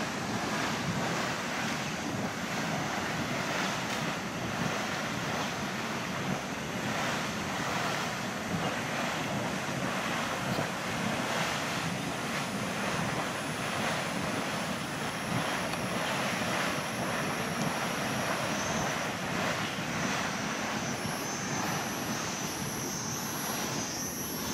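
Hot spring geyser gushing strongly: a continuous, steady rush of boiling water and steam spurting from the vents in the streambed.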